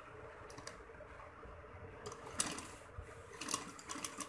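Domestic sewing machine stitching in short stop-start runs, its needle and mechanism making a fast clicking while it runs.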